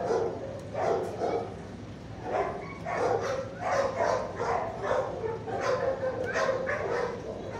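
Dogs barking and yipping over and over in shelter kennels, one short call after another.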